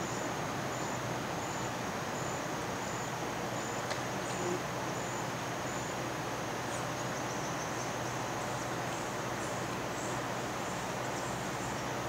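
Steady outdoor hiss with insects chirping: a thin, high chirp repeats about every three-quarters of a second.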